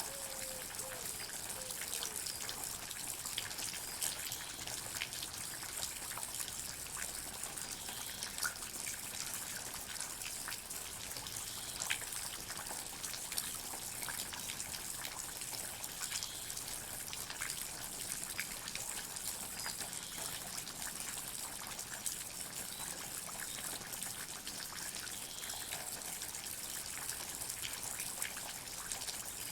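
Water drops dripping, with many small irregular drips and ticks over a steady trickling hiss. A few single drops stand out louder, at about 4, 8, 12 and 22 seconds in.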